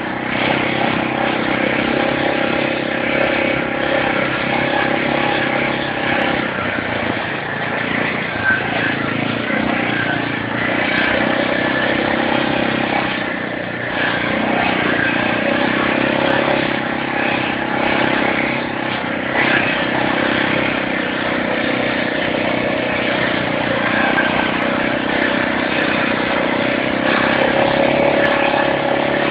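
ATV engine running steadily under way, its pitch shifting only slightly as the rider holds the throttle.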